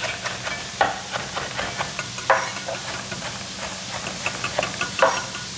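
Chef's knife chopping fresh parsley on a wooden chopping board: light taps with three louder knocks spread through, over the steady sizzle of mushrooms and chorizo frying in hot pans.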